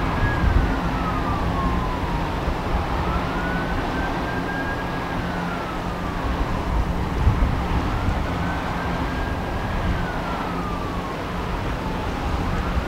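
An emergency vehicle siren on a slow wail: the tone climbs, holds high, then slides down, repeating about every four to five seconds. Under it runs a steady low hum and rumble.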